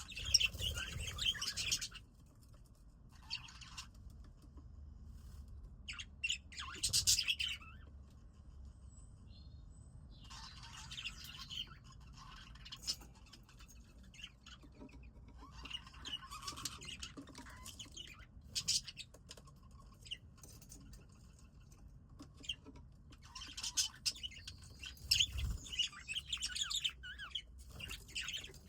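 Budgerigars chirping and chattering in bouts, with short pauses between them and a busier stretch near the end.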